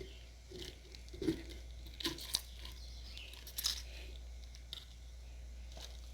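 Pineapple pieces being handled and set into a container: a few scattered soft knocks and rustles, the clearest about a second in, around two seconds in and near four seconds in.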